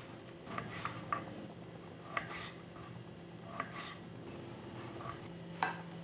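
A few light, scattered clicks and taps of a kitchen utensil against dishware as the pips are scraped out of halved tomatoes.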